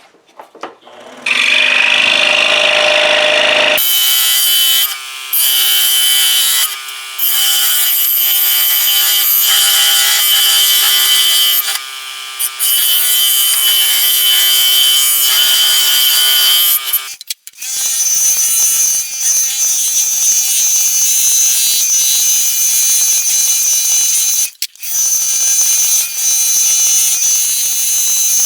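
Scroll saw running and cutting 3/4-inch red oak, a steady pitched hum with the blade's rapid strokes. The sound drops briefly several times, and about two thirds of the way in it cuts out for a moment and comes back at a different pitch.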